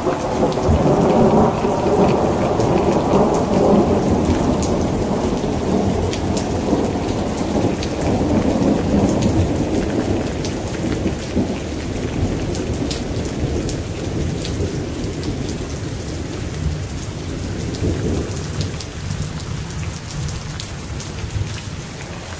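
Steady rain with a long, deep rumble of thunder that is heaviest in the first half and slowly fades away. Scattered raindrops tick sharply through the rain's hiss.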